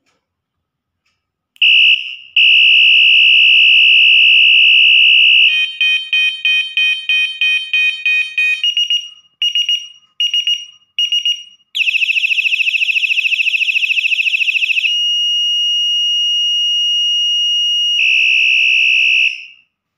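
Electronic horn of a bicycle headlight, worked from its handlebar remote button, sounding a loud high-pitched tone in several patterns: a steady beep, a fast pulsing, a run of separate short beeps, a rapid warble, then steady tones again near the end.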